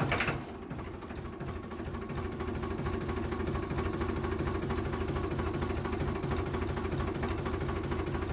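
Small motor of a toy-scale machine running steadily, with a fast, even beat.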